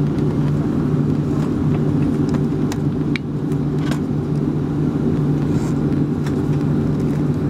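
Boeing 737-300's CFM56-3 turbofan engines running at taxi power, heard from inside the cabin over the wing: a steady low hum with a held low tone, broken by a few light clicks and rattles.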